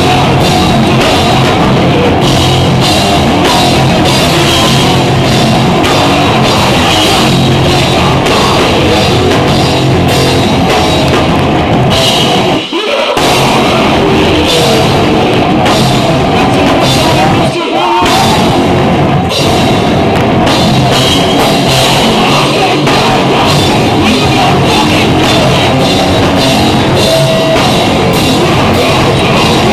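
A heavy rock band playing live and loud: distorted electric guitar, bass guitar and a pounding drum kit, with vocals into a microphone. The band stops dead for a split second twice near the middle.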